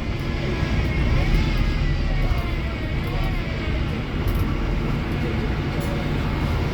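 Wrightbus StreetDeck HEV hybrid double-decker bus with its Mercedes-Benz OM934 four-cylinder diesel running: a steady heavy low rumble, with faint whining tones that rise and fall over it.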